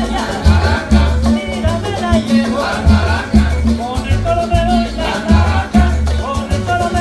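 Salsa music: a singing voice over a repeating bass line and steady, busy percussion.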